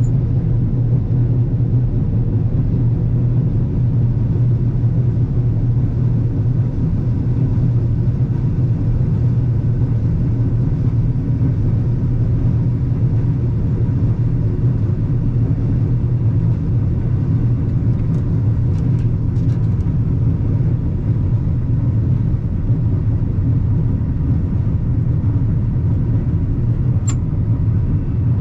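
Combine harvester running with a steady low drone. A single brief click sounds near the end.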